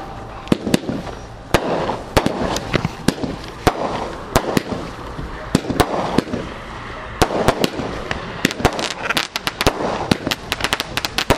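Consumer aerial fireworks cake firing: an irregular string of sharp bangs and cracks, thickening into rapid crackling near the end.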